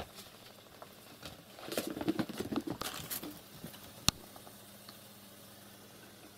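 Cats play-fighting on a parquet floor: a quick patter of running paws and scuffling bumps, then a single sharp click about four seconds in.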